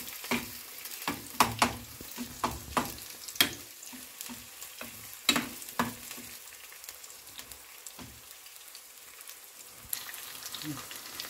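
Onion and green pepper sizzling in oil in a small non-stick frying pan, stirred with a metal spoon that clicks and scrapes against the pan. The clicks come often in the first half and only now and then later.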